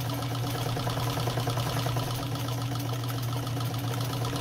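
Restored Nelco zigzag sewing machine running at a slow, steady speed while sewing a decorative stitch pattern: an even motor hum with the fast, regular clatter of the needle mechanism.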